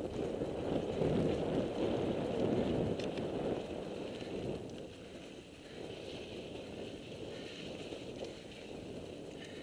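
Mountain bike riding over a rocky track: the tyres rumble on the rock and the bike rattles, with wind rushing on the helmet-camera microphone. It is loudest for the first few seconds, then eases as the ground gets smoother.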